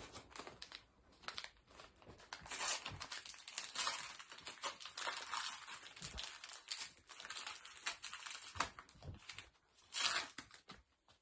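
Crinkly gift wrapping being rustled and torn open by hand: a quick, irregular crackling with brief pauses.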